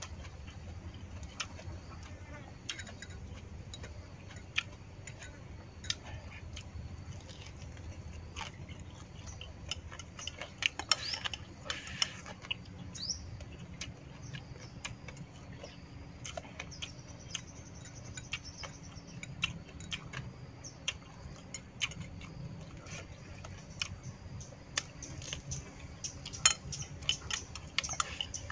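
Chopsticks clicking and scraping against a ceramic bowl while a man eats, with sharp clicks scattered throughout; near the end, a slurp from the bowl held to the mouth.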